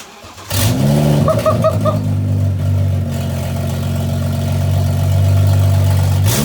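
BMW 335i's N55 turbocharged inline-six started with no downpipe fitted, its exhaust open straight off the turbo. It catches about half a second in with a quick rev flare, then settles to a loud, steady idle, with four short beeps about a second in and another brief flare at the very end.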